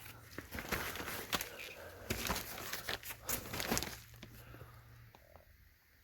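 Plastic vapor barrier crinkling and rustling under a person crawling across a crawlspace floor: irregular scuffs and crackles for about four seconds, then quieter.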